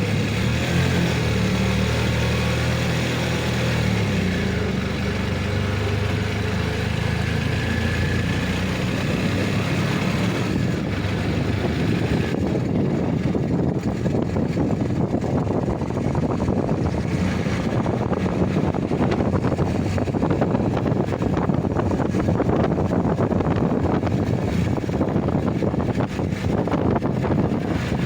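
A motor engine running steadily with a low hum. About ten seconds in it gives way to a louder, rougher rushing noise.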